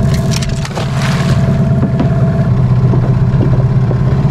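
Outboard motor on a small boat running steadily at speed, a constant low engine hum with some splashing or wind noise in the first second.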